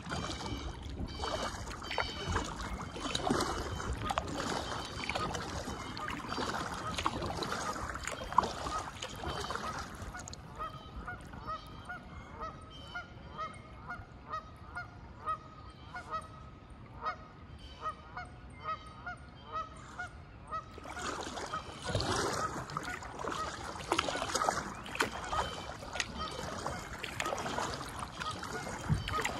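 Geese honking in a long, regular series of calls, about two a second, through the middle. Before and after the honking, kayak paddle strokes splash in the water.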